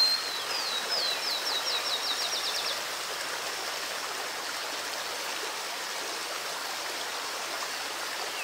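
Steady rush of flowing river water. For the first few seconds a small bird sings over it: a string of down-slurred whistles that speed up into a quick trill and stop.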